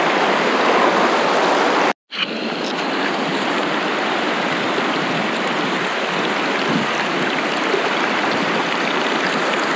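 Mountain stream rushing over stones, a steady noisy wash of water. It drops out for an instant about two seconds in, then carries on a little quieter.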